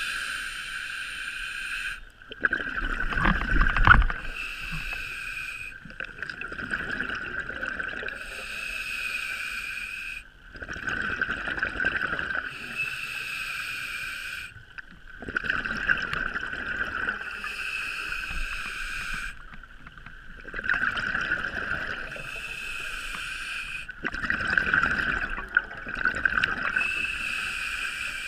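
Scuba regulator breathing heard underwater: every four to five seconds a breath cycle ends in a gurgling rush of exhaled bubbles, the strongest a few seconds in. A steady high-pitched hum runs underneath.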